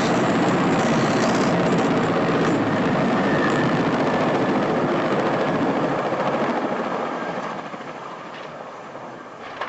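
Large transport helicopter's rotor and engines running close by, a dense steady whir that fades away over the last few seconds.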